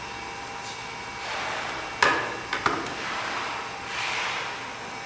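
Small metal tools knocking against a metal tin tray during chip desoldering: one sharp click about two seconds in, then two lighter clicks just after, over a faint steady hum.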